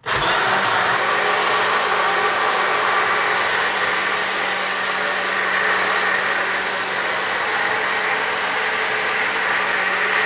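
High-powered countertop blender switched on and running steadily at full speed, pureeing rehydrating dried chillies in boiling water into a sauce: a loud even whirr over a constant motor hum.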